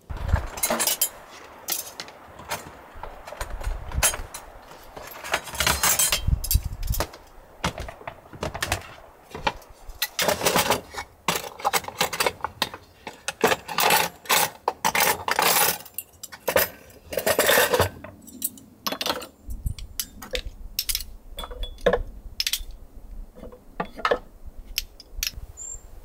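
Camp kitchen gear being handled: many sharp clinks and knocks of glass jars and wooden boxes, with stretches of denser rattling.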